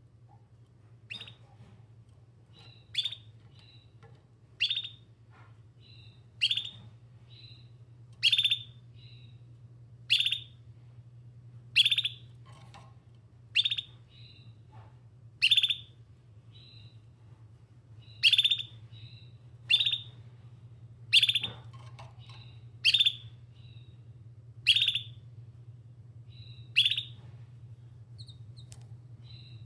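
Domestic canary giving a short, sharp call about every two seconds, each a quick downward sweep followed by a softer chirp or two: calling out for other canaries.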